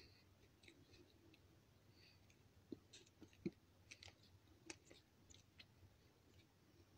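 Faint mouth clicks and soft crunches of white clay shale stone being chewed with the mouth closed, scattered and irregular, the loudest crunch about three and a half seconds in.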